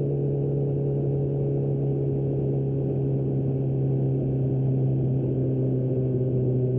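2025 Kawasaki Z900 SE's inline-four engine with an Austin Racing exhaust, running at steady revs with a constant, even drone.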